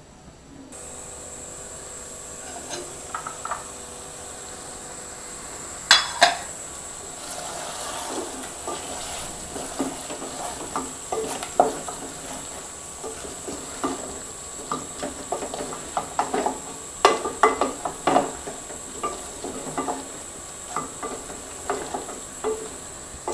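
A wooden spatula stirs and scrapes thick chicken curry in a steel pot, knocking irregularly against the pot from about six seconds in, over a steady sizzle. The cooking liquid has mostly dried off, so the meat is frying in its oil.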